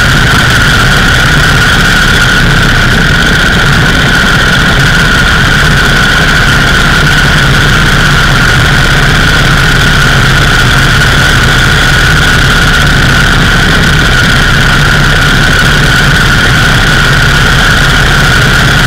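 Indian 101 Scout's V-twin engine running steadily while the motorcycle is ridden along, with wind rush on the microphone.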